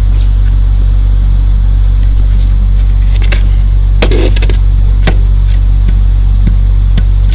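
Insects chirping in a fast, even pulse over a loud, steady low rumble, with a few sharp knocks between about three and five seconds in.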